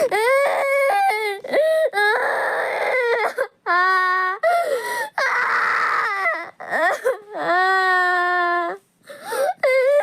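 A high-pitched voice crying hard: long, drawn-out wails, some with a wavering or falling pitch, broken by breathy, gasping sobs.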